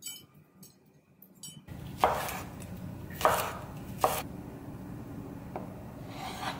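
Chef's knife chopping on a bamboo cutting board: three sharp chops about a second apart, then a faint knock and a softer cut through a block of tofu near the end.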